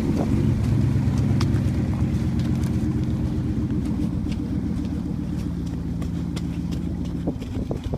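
1996 Dodge Ram pickup's V8 engine running steadily as the truck drives off, growing gradually fainter as it pulls away.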